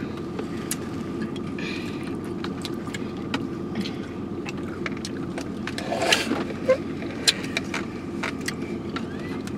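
Steady hum of a car's engine and ventilation running, heard inside the cabin. Scattered light clicks and rustles come from plastic slushie cups and straws being handled, with a brief louder sip or rustle about six seconds in.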